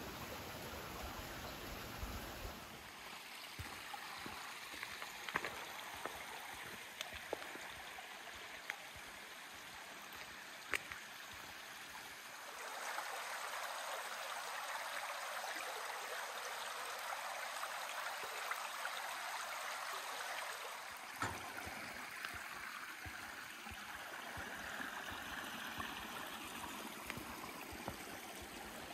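Small woodland brook babbling over stones, a steady water noise that swells louder for several seconds midway. A few sharp faint ticks stand out over it.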